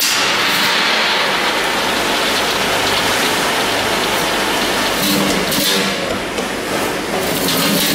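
Roasted peanuts pouring from a drum roaster's discharge chute into a stainless steel bucket: a dense, steady rattle like rain, over a low hum from the machine, easing slightly about six seconds in.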